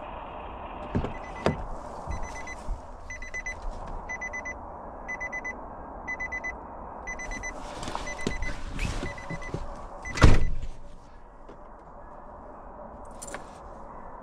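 Pickup truck's driver door opening with a couple of clicks, then the cab's door-open warning chime dinging over and over while the door stands open. The door slams shut about ten seconds in, the loudest sound, and the chime stops.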